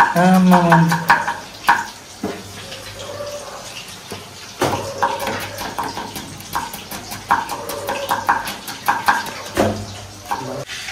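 Kitchen knife slicing a tomato on a wooden chopping board, the blade ticking against the board with each cut, over voices in the background.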